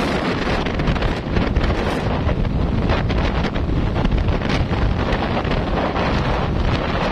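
Wind buffeting the microphone of a moving motorcycle: a loud, steady rumbling rush with no letup.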